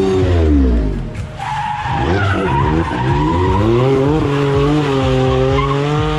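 Drift car's engine revving hard as it slides past, its note dropping in the first second and then climbing and holding at high revs, with tyres squealing and skidding through the drift.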